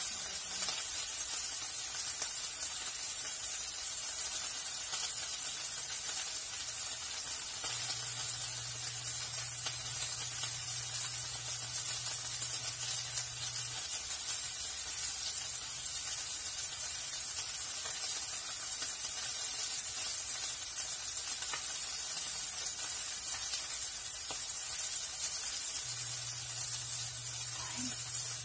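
Salmon fillets frying in a non-stick pan, sizzling steadily.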